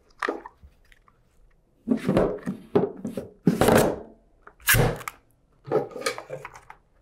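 A lithium battery's cell pack being lowered and pushed down into its plastic case: about half a dozen short scrapes and knocks as the pack and its cables rub and bump against the case walls.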